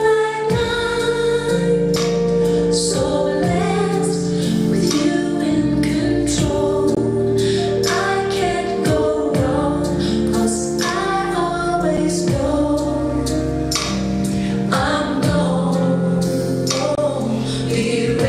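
Gospel song: a woman singing lead with a choir, over a steady beat.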